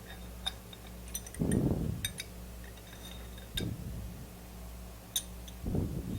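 Small metal parts and tools clinking and tapping as a workpiece setup is handled at a milling machine: scattered sharp clicks and a few dull knocks over a steady low hum.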